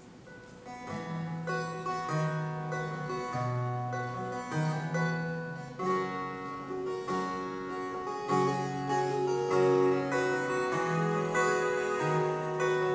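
Live rock band opening a song with an instrumental intro: picked guitar notes over a low, sustained bass line, coming in about a second in.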